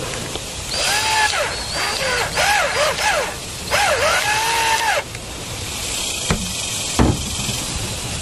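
Cordless drill driving a screw into a small rear camera's mounting bracket in short trigger pulses, its motor whine rising and falling several times as the screw is tightened. Two sharp knocks follow near the end.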